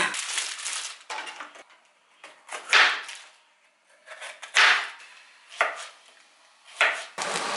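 Chef's knife slicing through a yellow bell pepper, partly frozen, and striking the chopping board: about seven separate strokes at an uneven pace. Near the end, onions start sizzling in a frying pan.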